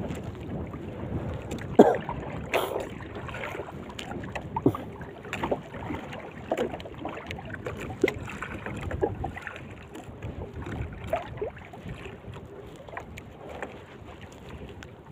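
Water lapping and slapping against the hull of a small wooden fishing boat, with irregular short knocks and splashes over a steady hiss.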